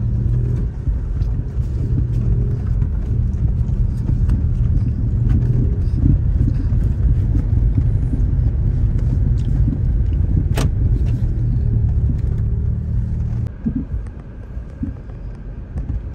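Kia Picanto driving over a rough gravel road, heard from inside the cabin: a steady low engine hum under loud tyre rumble, with stones ticking against the car and one sharp knock about ten seconds in. The engine hum drops away and the noise falls near the end.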